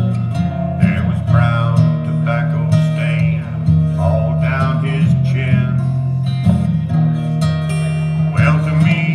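Acoustic guitar strummed in a steady country rhythm, with a man's voice singing over it.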